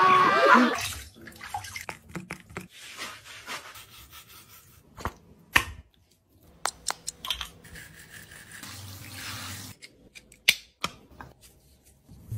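Dog being washed in a tiled shower: scattered drips, small splashes and knocks, with a short stretch of soft hiss near the middle.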